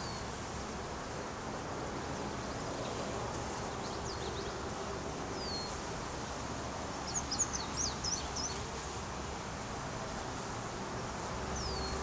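Steady hum of a honey bee swarm clustered on a branch. A small bird chirps now and then over it, with a quick run of chirps about seven seconds in.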